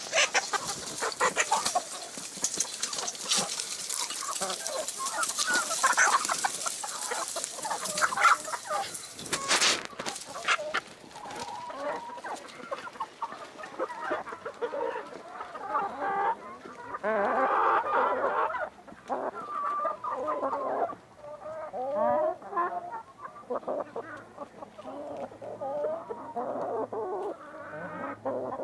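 A flock of chickens, light Brahma hens among them, clucking steadily in irregular overlapping calls while they feed. A rustling hiss with scattered clicks runs through about the first third.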